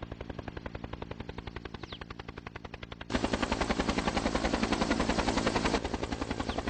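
Helicopter rotor chopping in a rapid, even beat. It gets suddenly much louder about three seconds in, then eases off a little near the end.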